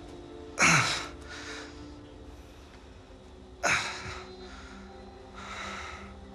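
A person's breathing: two sharp, sudden breaths in about three seconds apart, then softer breaths out, over faint steady background music.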